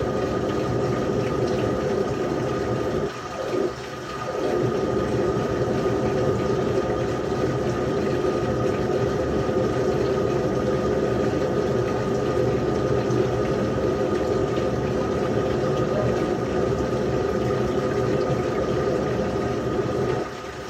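LG washing machine with water rushing steadily into it, as when it fills for a wash cycle, with a faint steady hum over the flow. The flow drops out briefly twice a little over three seconds in.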